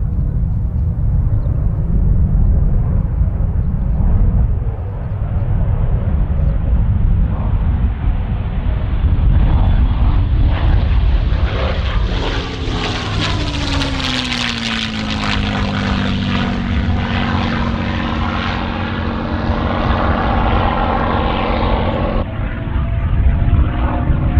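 Rolls-Royce Merlin V12 of a P-51D Mustang making a low, fast pass. The engine and propeller sound builds as the aircraft approaches and is loudest about halfway through as it passes overhead, then its pitch drops as it goes away.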